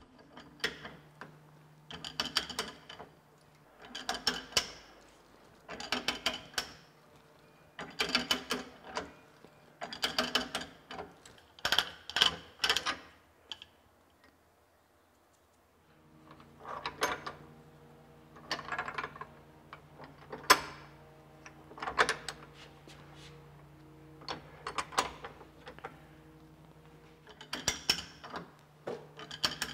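Hand threading die being turned on the end of a bronze rod clamped in a vise: metal-on-metal scraping and clicking in short clusters about every two seconds, one per turn of the die stock, with a short pause about halfway.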